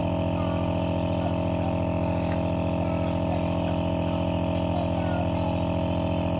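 A steady machine hum: a buzzing drone that holds one pitch and level without change.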